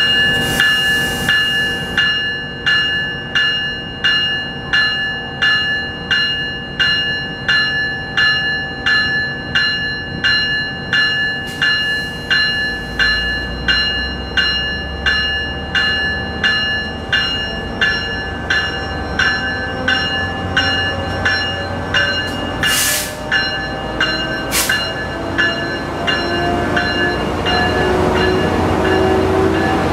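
Tri-Rail BL36PH diesel locomotive's bell ringing steadily, about one and a half strokes a second, over the running engine. Near the end the bell stops, there are two short hisses, and the engine's pitch rises as the train pulls away.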